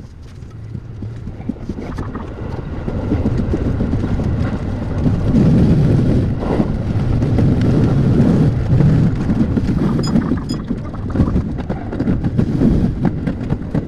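Electric train running on the track: a rumble with rhythmic clatter of wheels over the rails, growing louder over the first few seconds and then staying loud.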